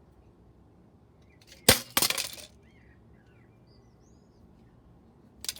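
An old boiler control panel smashing on the ground: one loud sharp crash about one and a half seconds in, then straight away a clatter of breaking pieces for about half a second. Another short sharp hit comes near the end.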